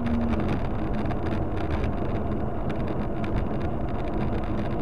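Steady rumble of road and engine noise from a moving car, with wind buffeting the microphone.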